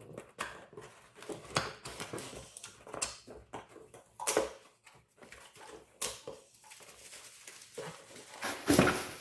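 Cardboard product box being opened by hand: irregular tearing, scraping and knocking of the packaging, with the loudest rustle near the end.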